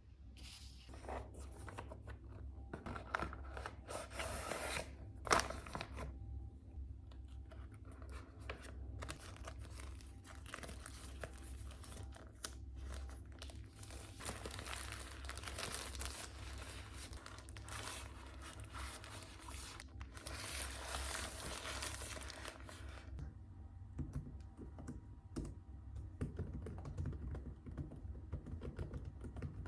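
Crinkling, rustling and tearing of something being handled, with many short crackles, for most of the stretch. After about 23 seconds it gives way to quieter scattered clicks and taps.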